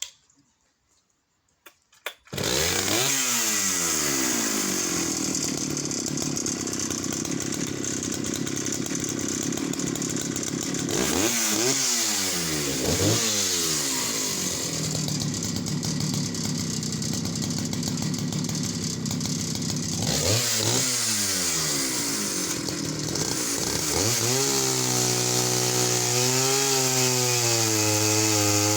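Jonsereds 751 two-stroke chainsaw with a semi-chisel chain cutting through a log about 17 inches thick. It starts about two seconds in and runs at high revs, the engine note dipping and recovering a few times under load. Its pitch holds steady near the end.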